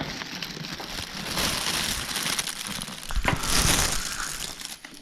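Close, continuous crinkling and rustling, loudest about three and a half seconds in.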